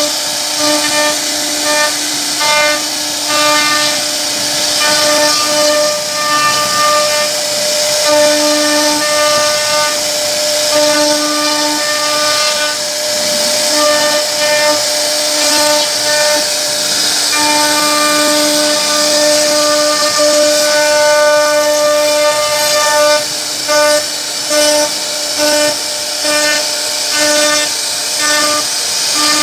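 CNC router spindle carving wood: a steady whine that drops out and resumes in short stretches as the bit moves through the pattern, over a constant hiss from the cutter.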